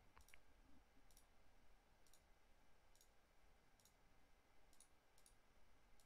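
Near silence with faint computer mouse clicks, roughly one a second, as settings are picked in software dialogs.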